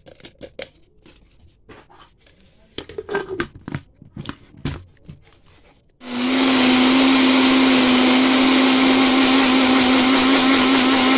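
A few clicks and knocks as the blender jar is handled. Then, about six seconds in, the countertop blender's motor switches on abruptly and runs steadily at full speed with a steady hum, blending eggs, oil, sugar and semolina into a liquid batter.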